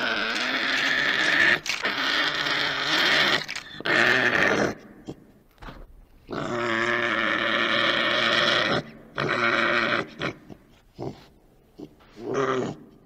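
American badger growling: two long growls of several seconds, then a run of shorter ones toward the end.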